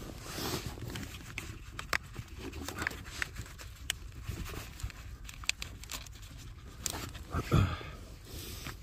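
Rustling, crinkling and scattered small clicks of pipe lagging being handled and fitted onto caravan water pipes, with a louder thump about seven and a half seconds in.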